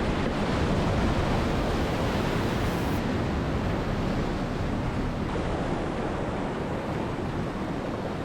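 Whitewater creek rapids rushing, a steady loud wash of water.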